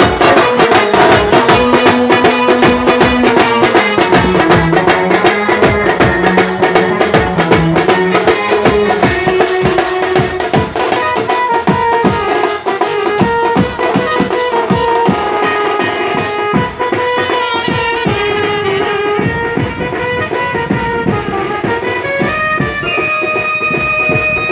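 Indian wedding band playing loud, fast music: a melody of held notes over dense, driving drums and percussion.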